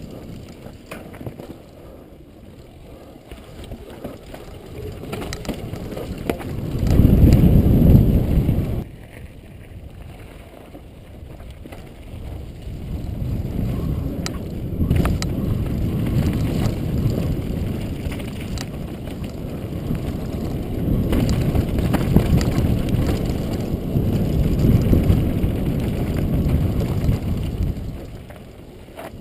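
Downhill mountain bike at speed over rough dirt trail: a low wind rush on the helmet camera's microphone with the bike rattling and clicking over bumps. The rush is loudest about seven seconds in, drops away briefly, then builds again and stays strong until near the end.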